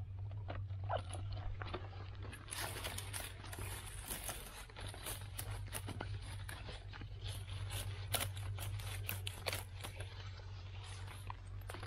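Dry grass stems and twigs crackling and rustling as a hand pulls them aside around a frog burrow, a dense run of short crackles over a steady low hum.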